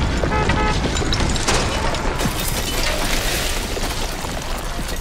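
Earthquake sound effects for a destruction simulation: a deep rumble under crashing and clattering debris and breaking glass, slowly dying down.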